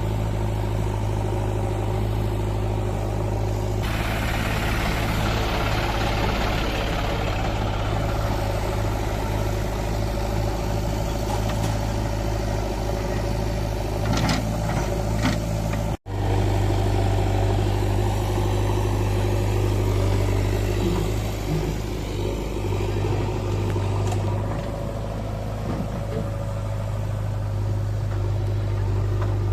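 Diesel engines of a JCB 3DX backhoe loader and farm tractors running steadily, with a harsher, noisier working stretch through the first half. The sound cuts out for an instant about halfway through.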